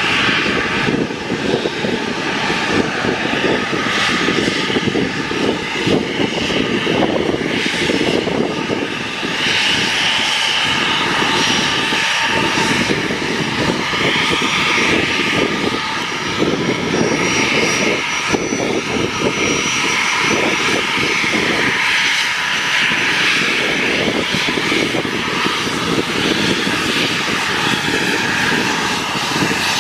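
Twin rear-mounted turbofan engines of a Gulfstream business jet running at taxi power: a steady jet whine over a continuous rushing rumble.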